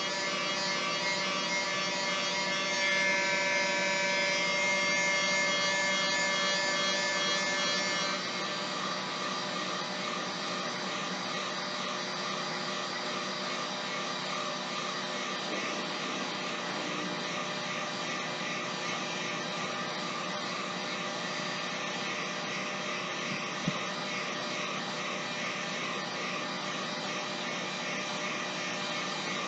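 Electric heat gun running steadily with a fan whine, blowing hot air to shrink rubberized heat-shrink tubing onto a fishing rod's cork handle. Its sound is a little louder, with extra whine tones, for the first eight seconds, then settles slightly quieter.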